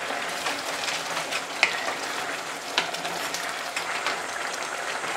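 Risotto rice cooking in broth in the pan: a steady sizzling simmer, with a few light clicks as it is stirred.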